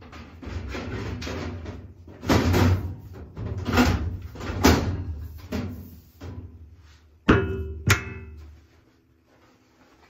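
Sheet-metal furnace access panels being handled and fitted back into place: a run of scraping and shuffling noises, then two sharp bangs just over half a second apart near the end, with a brief metallic ring after them.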